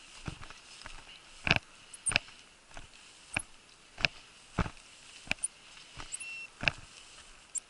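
Footsteps of a person walking through dry, knee-high scrub and grass, a crunching, brushing step about every 0.6 s.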